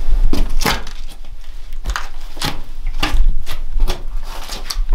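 Footsteps and scuffs on the gritty rock floor of a narrow cave passage: irregular crunching steps about twice a second, with low thumps underneath.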